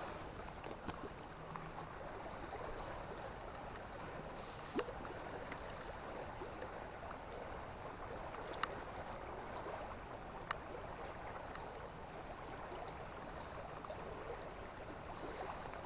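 River water flowing steadily, an even rushing murmur, with a few faint clicks about a third and two thirds of the way in.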